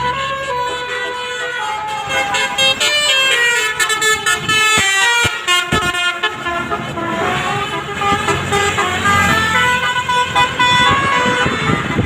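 A bus's telolet horn, a Basuri-type multi-tone horn, playing a quick tune of short stepping notes over the noise of the passing vehicle.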